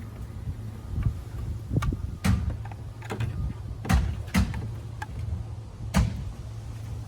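Several sharp plastic clicks and knocks, about five spread over the seconds, as the trim parts of a car's side mirror are handled and prised, over a steady low hum.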